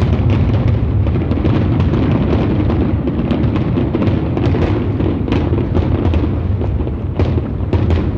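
Fireworks display: a continuous low booming rumble with many sharp bangs and crackles of bursting shells.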